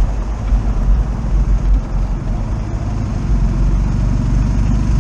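BMW R 1250 RT boxer-twin engine running steadily in third gear at low speed, with a deep low rumble under wind and road noise.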